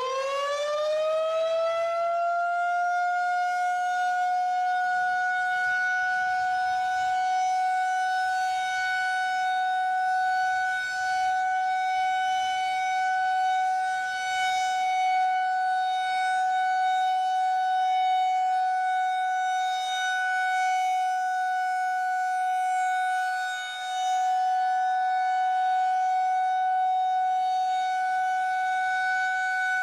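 Federal Signal 2001-130 electromechanical outdoor warning siren sounding the steady alert signal: it finishes winding up to full pitch about two seconds in, then holds one steady note, its loudness wavering a little.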